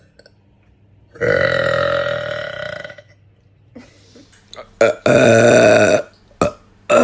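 A woman belching loudly: a long belch of nearly two seconds, then a few short faint sounds, another loud belch of about a second, and a third starting right at the end.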